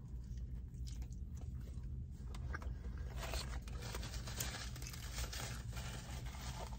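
A person chewing a mouthful of food close to the microphone, over a steady low hum. From about three seconds in, a paper napkin rustles as the hands are wiped.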